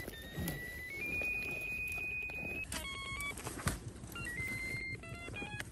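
Hand-held electronic ferret locator held to the ground over the burrow, giving a high steady electronic tone that steps up in pitch for the first few seconds, then breaks into shorter beeps and tones. A terrier's digging in the earth scrapes faintly underneath.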